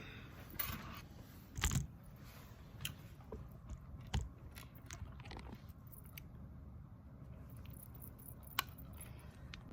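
Quiet room tone broken by scattered small clicks and knocks of things being handled. The loudest knocks come about two seconds in and about four seconds in, with a sharp click near the end.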